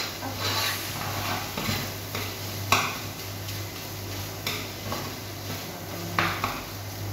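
A fork stirring spaghetti in a metal pot, scraping around the pot with a few sharp clinks against its side. A steady low hum runs underneath.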